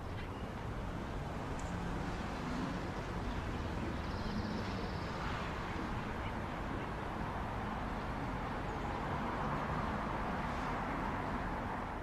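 Outdoor parking-lot ambience: a steady wash of distant traffic, with faint bird calls now and then and a short high trill about four seconds in.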